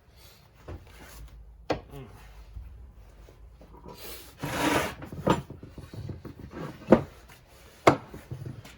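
Hand tools working the crankcase bolts of a 1957 Harley-Davidson flathead engine: intermittent scraping and rubbing, a louder scrape near the middle, and three sharp metallic knocks.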